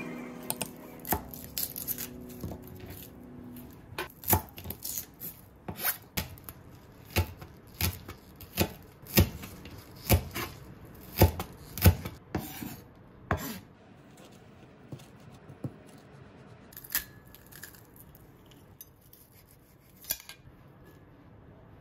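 Kitchen knife chopping garlic chives on a cutting board: a run of sharp, irregular chops that thins out to a few quieter knocks in the second half.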